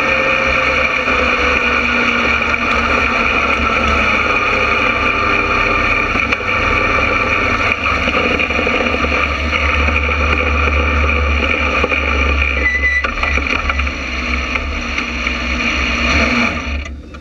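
Small open-wheel race car's engine running steadily at low revs as the car rolls at slow speed, easing off and shutting down near the end.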